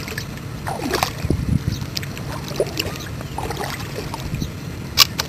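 Shallow water sloshing and splashing around bare legs wading through a flooded field, with a single sharp snap near the end.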